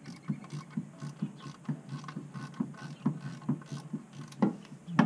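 Ratchet wrench clicking in short strokes, about two a second, as exhaust manifold bolts are worked loose, with two louder metal knocks near the end.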